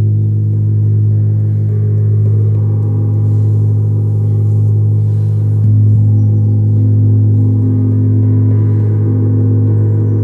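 Large tuned planetary moon gong played continuously with soft felt mallets: a loud, steady deep hum with higher overtones swelling and fading over it, and a slightly stronger stroke about six seconds in.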